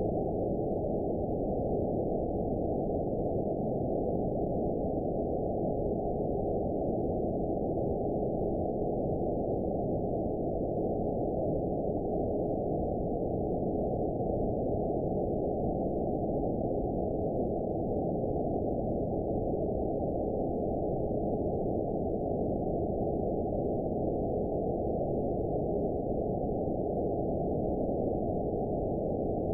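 Radio receiver hiss from an RTL-SDR tuned near 49.75 MHz, steady and cut off above about 1 kHz. Faint steady tones sit in the noise: the beat of a distant TV carrier.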